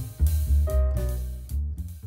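Background music with drums and guitar.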